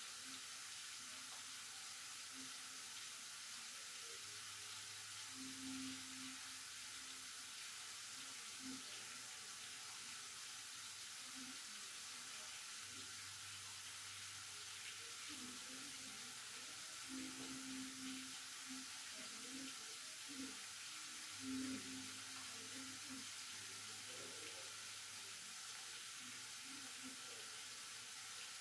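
Lidded pot of tomato sauce simmering on a lit gas burner: a faint, steady hiss, with faint low tones coming and going in the background.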